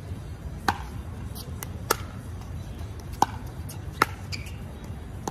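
Pickleball rally: paddles hitting the hollow plastic ball, four sharp knocks spaced a little over a second apart.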